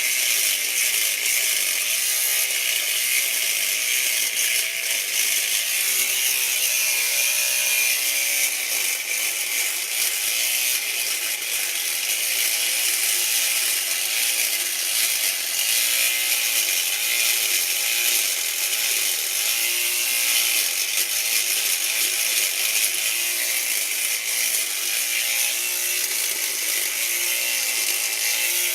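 Electric razor motor running steadily, buzzing as it cuts off a moustache, its pitch shifting now and then as it presses against the hair.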